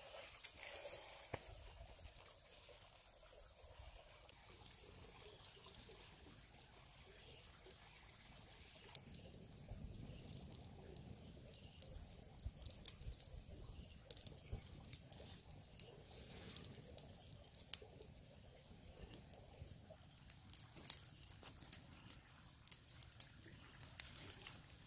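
Small wood campfire crackling faintly, with scattered sharp clicks and pops that come thicker near the end as the fire is stirred with a stick, over a steady thin high whine.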